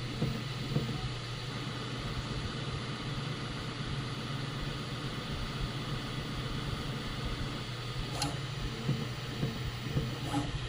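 Bambu Lab P1S 3D printer running, with a steady hum from its fans and motion noise, and one short tick about eight seconds in.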